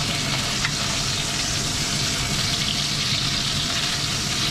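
Chicken wings sizzling steadily in oil in a wok over a gas flame, being turned with a wooden spatula.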